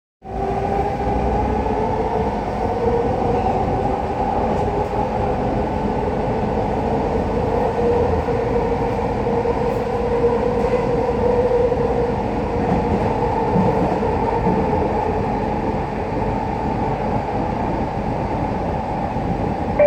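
Vancouver SkyTrain car running along the line, heard from inside the car: a continuous rumble with a steady, slightly wavering motor whine.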